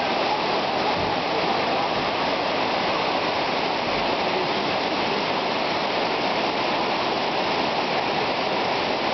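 Fast-flowing floodwater rushing steadily, a constant even wash of water noise.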